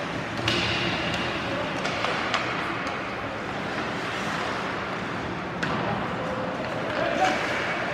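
Live ice hockey play in a rink: a steady wash of skates scraping the ice and faint crowd murmur, with a few sharp knocks of sticks and puck.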